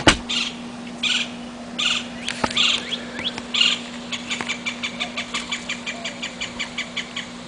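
Songbirds calling: a sharp click at the very start, then harsh calls repeated about once a second, then a quick, even series of short notes, about five a second, for some three seconds. A steady low hum runs underneath.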